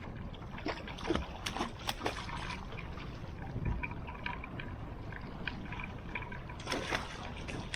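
Water trickling and splashing around a small boat, with scattered short splashes and light knocks.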